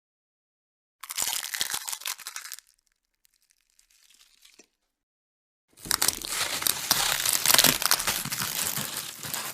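Bone-cracking sound effects: a dense burst of crunching, crackling snaps about a second in, lasting about a second and a half, then after a pause a longer run of crunching crackles from about six seconds in to the end.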